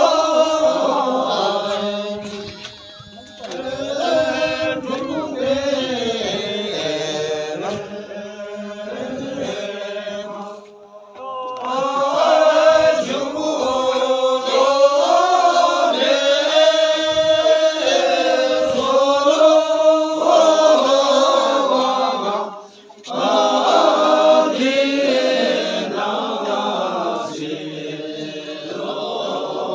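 A voice chanting a Buddhist recitation in a melodic, sung tone, in long phrases with short breaks for breath about 3, 11 and 23 seconds in.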